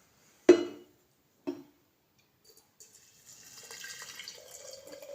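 Two clinks, then hot water poured onto the herbs in a vessel, a steady splashing pour that starts about three seconds in, with a tone from the filling vessel beneath it.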